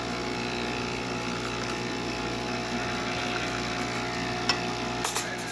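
Breville Barista Express's vibratory pump buzzing steadily as it runs hot water from the hot-water outlet into a glass shot cup to rinse it. A few sharp clicks come near the end.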